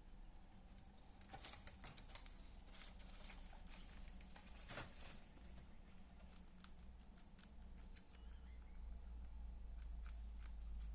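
Guinea pig chewing crunchy vegetables: faint, irregular crunching clicks in quick runs.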